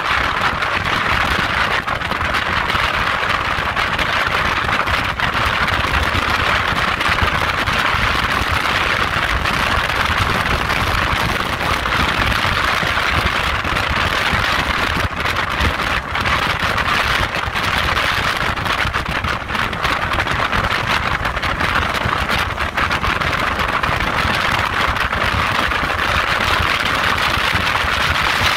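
Motorboat running at high speed: a steady rushing noise with a low rumble underneath.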